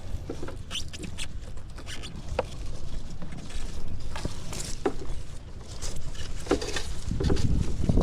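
Irregular light pattering and small clicks, like handling or rustling, over a low rumble that grows louder near the end.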